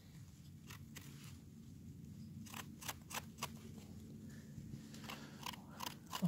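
Knife blade scraping and trimming a freshly picked bolete mushroom held in the hand: a series of short, faint scrapes, several in quick succession a little past the middle and a few more near the end.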